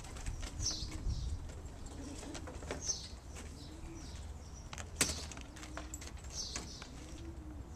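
Racing pigeons cooing in a loft: repeated low, arching coos about once a second, with short high chirps between them and a sharp click about five seconds in.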